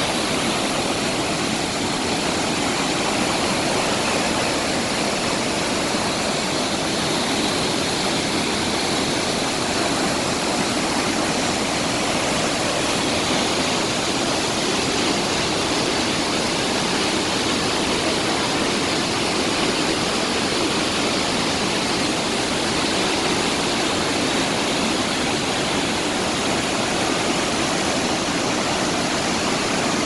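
The Pailón del Diablo waterfall pouring down: a steady, unbroken rush of falling water.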